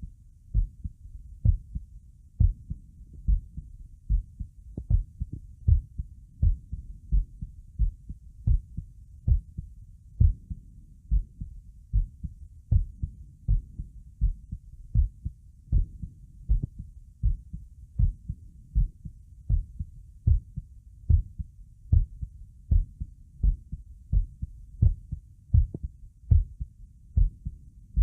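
Human heartbeat, each beat a low double thump (lub-dub), repeating evenly at a little over one beat a second.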